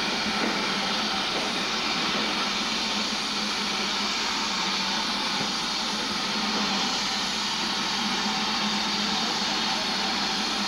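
BR Standard Class 4 tank steam locomotive drawing slowly into a station platform with a steady hiss of steam and no distinct exhaust beats.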